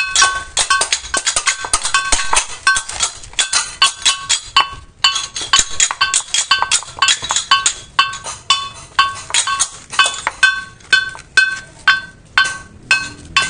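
Balinese gamelan-style metal percussion accompanying a barong ngelawang: a steady beat of struck metal notes ringing at two pitches, with a brief break about five seconds in and the strokes slowing toward the end.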